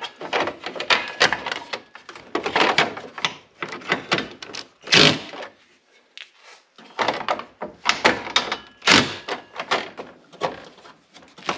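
Irregular clicks, knocks and scraping of hands and fasteners working on a UTV's plastic front fascia as it is secured to the frame, with one louder knock about five seconds in.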